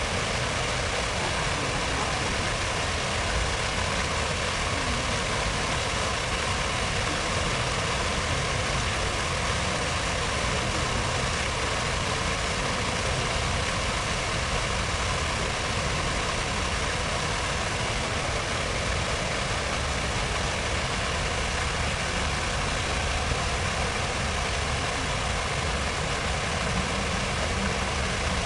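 Steady rushing and splashing of fountain water in a reflecting pool, an unbroken even hiss with a low city hum underneath.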